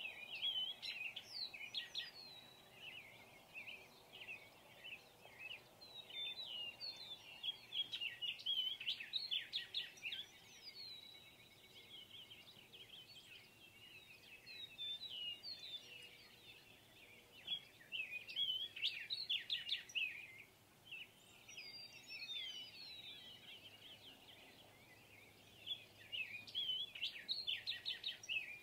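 Songbirds singing: bursts of quick, high chirps and trills every few seconds.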